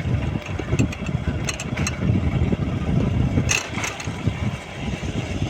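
Honda Activa scooter running while being ridden, with a heavy, uneven low rumble of wind and road noise on the microphone and a few short clicks partway through.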